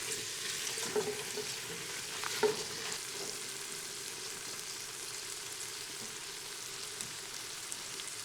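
Biryani masala frying in a cooking pan, a steady sizzle, with a few short stirring knocks in the first three seconds.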